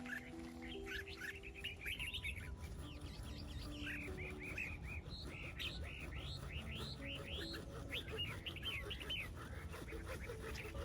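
Small songbirds chirping in quick runs of short rising-and-falling notes.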